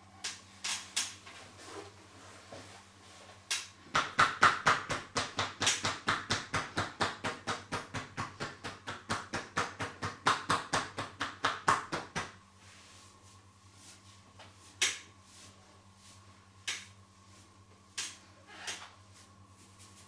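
Hands striking the body in a rapid percussive massage: about five quick slaps a second for some eight seconds, starting about four seconds in. Scattered single pats and taps come before and after.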